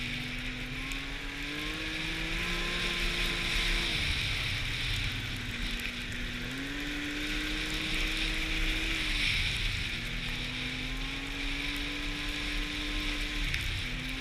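Snowmobile engine running under way, its pitch climbing and dropping several times as the throttle is opened and eased off, over a steady hiss.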